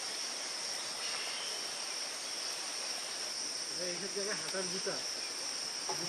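Steady, high-pitched insect chorus of crickets or cicadas. Faint voices come in briefly about four seconds in.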